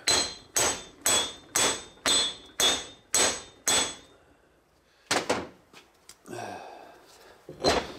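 Hand hammer striking steel, about eight evenly spaced blows two a second with a metallic ring, driving a new lug stud into a wheel hub. After a short pause come a few more knocks around five seconds in.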